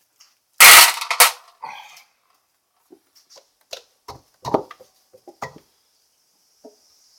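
Engine teardown work: a loud double clank a little under a second in, followed by scattered lighter knocks and clicks of tools and parts being handled.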